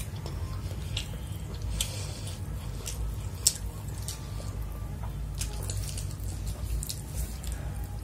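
Close-up eating sounds: wet chewing and mouth clicks, with the squish of fingers working chicken fried rice on the plate. Short clicks come throughout, the sharpest about three and a half seconds in, over a steady low hum.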